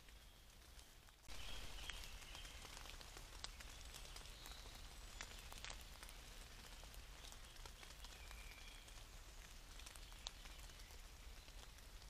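Faint woodland ambience from a trail camera's built-in microphone: a steady hiss that grows louder about a second in, scattered soft ticks, and a few faint high chirps.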